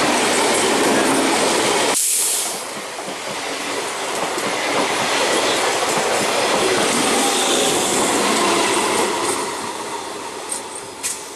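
Electric multiple-unit local train rolling past close by, its wheels clattering over the rails. The loudness drops suddenly about two seconds in, and the noise fades near the end as the last coach moves away.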